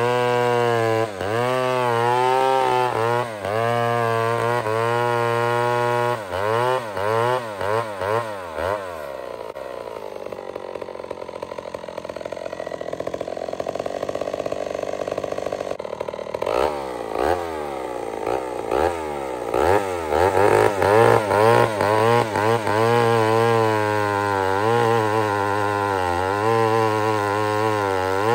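107 cc Pioneer two-stroke chainsaw with a 36-inch bar and hand-filed .404 skip-tooth chain cutting a large log round, its engine pitch wavering up and down under load. Several seconds in it eases to a lower, steadier run for a few seconds, then goes back into the cut at full revs.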